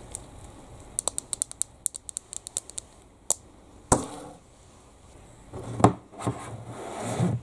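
Plastic slime tubs handled on a tabletop: a quick run of light clicks and taps on the plastic, then a single knock as a tub is set down, followed by rubbing and bumping as the tubs are moved about.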